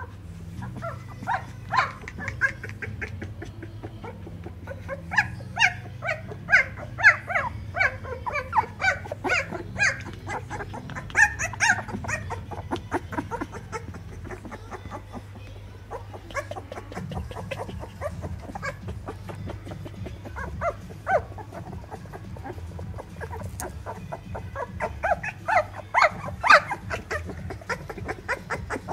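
Keeshond puppies about twelve days old squeaking and whimpering in many short high calls, thick in the first half and again near the end.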